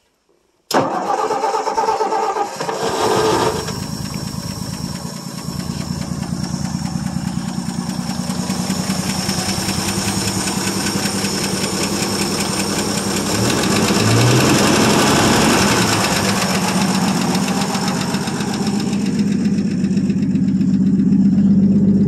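1959 Ford F250's six-cylinder engine is cranked and catches within a few seconds, then keeps running steadily. It is a cold start after some three to four years unstarted, running on fuel poured into the carburetor bowl. It gets somewhat louder about two-thirds of the way through.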